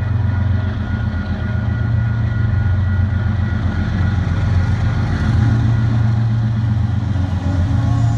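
Canadian Pacific diesel locomotive running, a loud, steady, throbbing low engine rumble with faint high tones above it.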